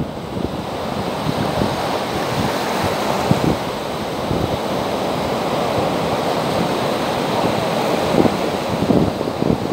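Small waves breaking and washing up a sandy beach, a steady hiss of surf. Wind buffets the microphone now and then, most near the end.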